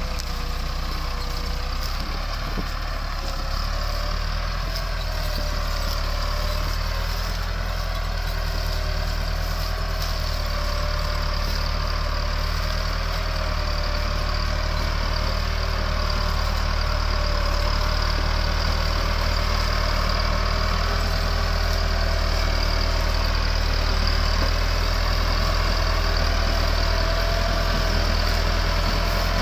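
Massey Ferguson 385 tractor's diesel engine running steadily under heavy load as it hauls an overloaded sugarcane trolley, growing a little louder as it draws near.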